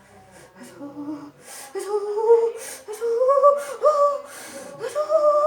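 A person moaning and crying out in pain in several drawn-out, wavering wails from about a second and a half in, as pressure massage works on a sore spot.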